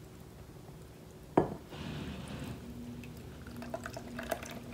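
A mixing bowl knocks once against another bowl about a second and a half in, then a faint pouring as the bowl of buttermilk and molasses is tipped into the dry ingredients, with a faint steady hum and a few small clicks near the end.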